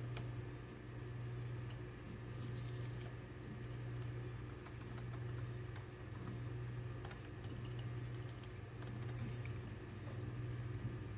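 Typing on a Topre Realforce 104UB keyboard with variable-keyweight Topre capacitive switches: irregular runs of soft key strikes, some in quick clusters, over a steady low hum.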